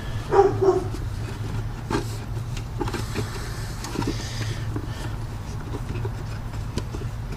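Light clicks and rustling of a replacement air filter being handled and fitted into the plastic air box, over a steady low hum. A brief whine comes about half a second in.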